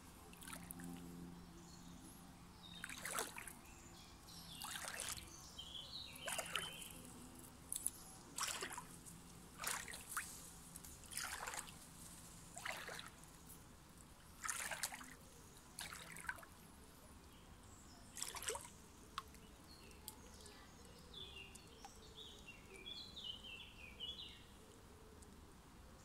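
Faint trickle of a shallow stream running over pebbles, with short splashing gurgles every second or two that die away in the last third.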